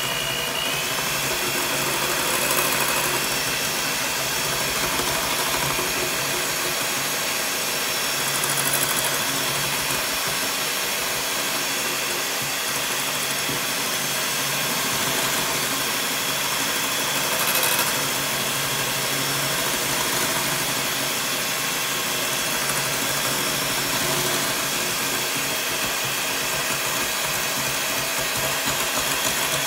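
Electric hand mixer running steadily, its beaters whipping instant coffee, sugar and hot water into foam in a glass bowl.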